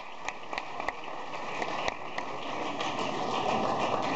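Audience applauding: a steady patter of clapping with scattered sharper claps.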